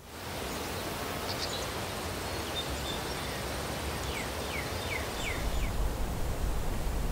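Outdoor countryside ambience: a steady rushing hiss with small birds chirping, including a run of four quick falling chirps about four to five seconds in. A low wind rumble comes up near the end.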